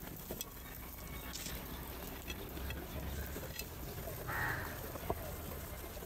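House crows feeding at clay bowls: scattered light clicks of beaks pecking, with one short harsh crow caw about four seconds in.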